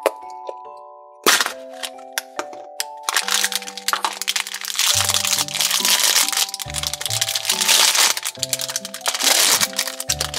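Thin plastic toy wrapper crinkling and tearing as it is pulled open, a dense crackle from about three seconds in, after a few sharp clicks near the start as a plastic capsule comes apart. Light background music plays throughout.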